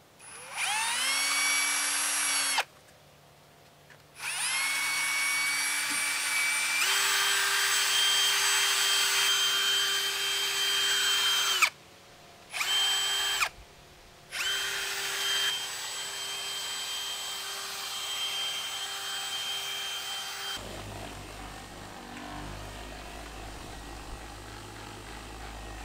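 Ryobi cordless drill spinning a foam polishing pad on a boat hull: the motor whines up to speed, runs, and stops and restarts three times, stepping up to a higher speed about seven seconds in. For the last five seconds the whine is gone and a low steady rumble remains.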